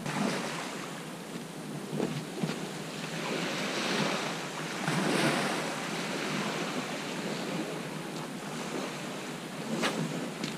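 Surf washing on a shingle beach, swelling about four to five seconds in, with wind on the microphone.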